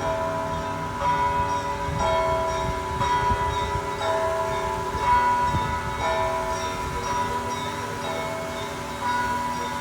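Bells being rung, a new strike about once a second, each note ringing on and overlapping the next.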